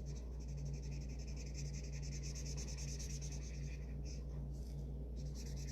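Felt-tip marker scribbling on paper in quick back-and-forth strokes, colouring in an area, with short breaks about four and five seconds in. A steady low hum runs underneath.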